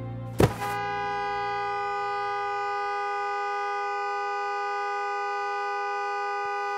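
A sharp thud about half a second in, then a two-tone car horn blaring without a break, held down steadily at one pitch for about six seconds.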